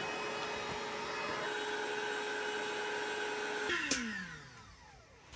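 Electric air pump running steadily as it inflates an air mattress, then switched off with a click just under four seconds in, its pitch falling as the motor spins down.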